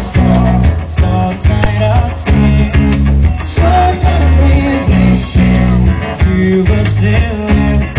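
Live amplified band music: a male singer over a strummed acoustic guitar and a heavy, steady bass line.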